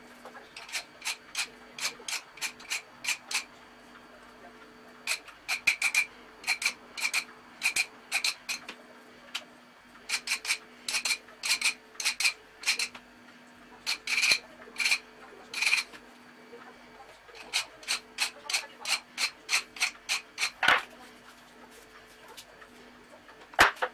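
Hand file scraping back and forth on a small metal ring from a three-jaw lathe chuck: quick strokes, about three or four a second, in several runs broken by short pauses.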